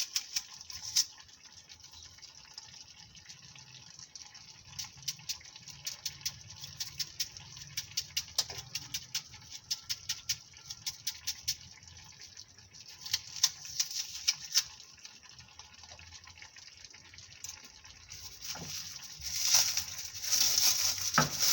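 Kitchen food preparation with an onion: runs of quick light clicks and taps through the middle, then a louder hissing, spluttering sound in the last few seconds.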